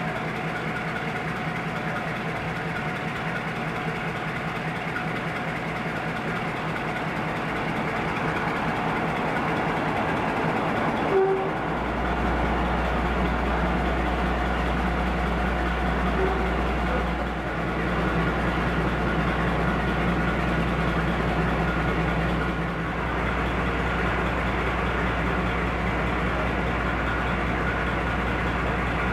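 Class 42 'Warship' diesel-hydraulic locomotive's twin Maybach diesel engines idling steadily. A deeper low hum joins about twelve seconds in.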